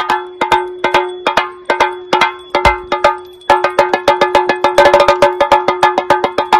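Chenda drum beaten with sticks in a fast, uneven rhythm of sharp, clanging strikes over a steady ringing tone; the beating pauses briefly about three seconds in, then comes back denser.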